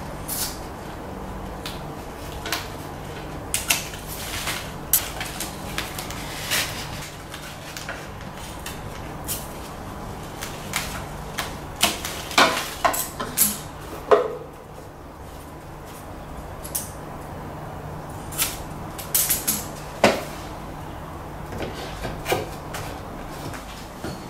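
Scissors snipping and adhesive tape being handled: scattered sharp snips, clicks and crinkles, busiest about halfway through.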